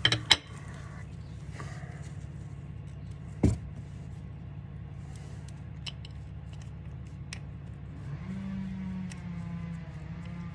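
Metal hand tools clicking and knocking on the motorcycle while bolts are tightened, two sharp knocks right at the start and another about three and a half seconds in. Under them runs a steady low engine-like hum, and a low pitched drone joins it about eight seconds in.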